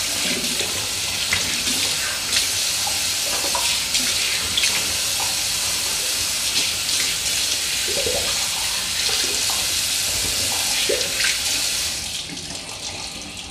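Bathroom sink tap running while a face is rinsed with splashing handfuls of water to wash off cleanser. The rush of water drops back about twelve seconds in.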